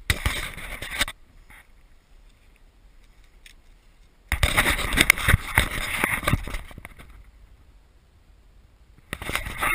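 Three bursts of close rustling and scraping handling noise as the camera and the compound bow are moved about: a short one at the start, a longer one of two to three seconds about four seconds in, and another near the end.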